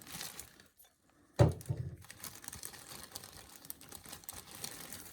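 Plastic bag and packaging of a new furnace oil filter crinkling and being handled, with light clicky rustling throughout. One sharp knock about a second and a half in.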